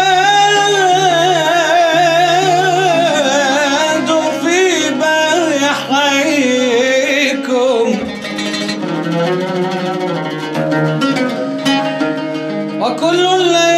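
A man sings an Arabic nasheed in a wavering, ornamented line over a steady drone. About halfway through the voice stops and a plucked string instrument plays a run of quick notes, and the voice comes back near the end.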